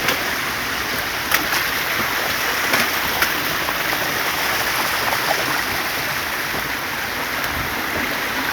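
Steady rushing water, with a few short sharp clicks in the first few seconds.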